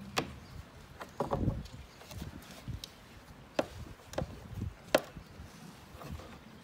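Sharp plastic clicks and knocks, a handful spread over several seconds, with a duller cluster of thumps about a second in, as a car's third brake light unit is handled and slid back into its mounting.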